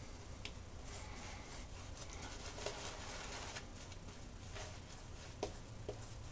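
Horsehair shaving brush swirling lather over the face: a faint, soft wet brushing and squishing, with a few light ticks.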